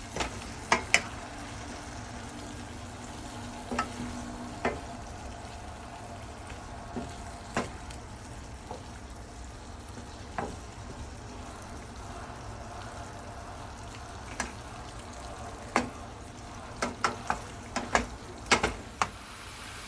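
Chicken wings frying in oil in a pan, a steady sizzle, while a utensil stirs in the curry powder and paprika, clicking and scraping against the pan now and then. The clicks come more often near the end.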